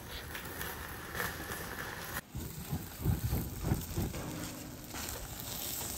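Meat kebab skewers sizzling over a charcoal grill, with fat crackling and spitting on the hot coals. A few dull low thumps come in the second half.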